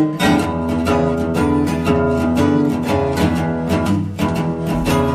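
Background music: acoustic blues played on guitar, a run of picked notes.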